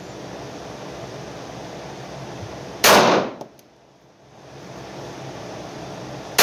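Two slow, deliberate shots from a Heckler & Koch HK45C compact .45 ACP pistol, about three and a half seconds apart, the second at the very end. Each shot is a sharp crack with a short echoing tail off the indoor range walls, with a steady background hiss between them.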